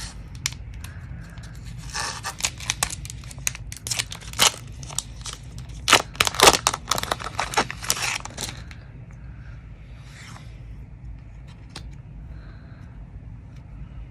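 Foil wrapper of a Pokémon TCG booster pack being torn open, a run of crinkling and tearing crackles that grows loudest for a moment before dying down to faint rustling.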